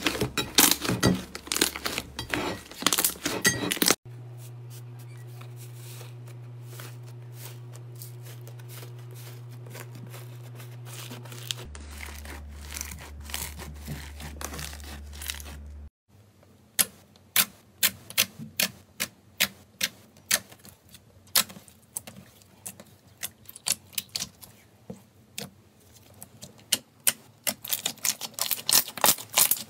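Slime being squeezed and pressed: sharp crackling clicks and pops, dense at first, then a few a second. In the middle stretch only a steady low hum remains, with faint sounds over it.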